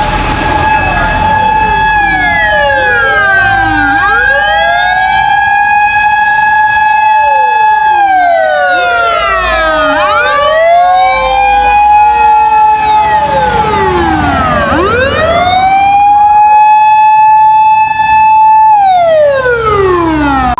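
Several emergency vehicles' motor sirens sounding together out of step, each holding a steady wail, then winding down and spinning back up to pitch, over a low engine rumble.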